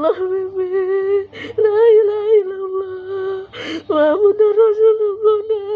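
A poisoned, dying cat moaning in long, steady drawn-out cries, with a gasping breath between them.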